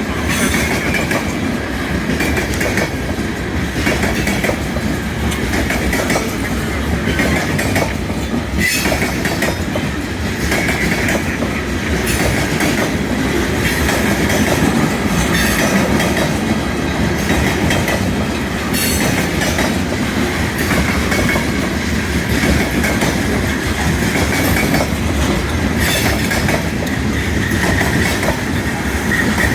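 Heavy freight train rolling past, its wheels clattering over rail joints with a steady rumble and a faint high squeal from the wheels.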